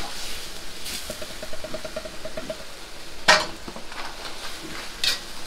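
Pork kimchi sizzling in a wok over a high gas flame while a metal ladle stirs it, the ladle clanking against the wok. The loudest clank comes a little past three seconds in, with another near the end, and there is a short run of rapid ticks about a second in.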